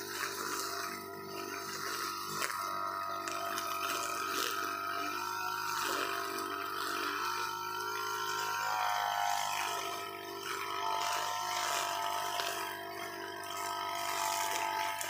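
UM328 brushcutter's two-stroke engine running off to one side, its note steady, then falling about halfway through as the throttle is eased and holding lower.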